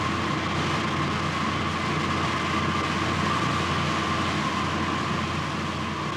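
A fishing dragger's engine running steadily under way, with a constant hiss of water and a thin steady tone over it.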